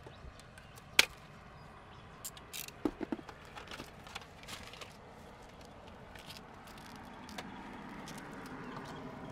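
Handling clicks and knocks: one sharp click about a second in, then a run of lighter clicks and knocks, fading to scattered faint ticks over a faint steady background.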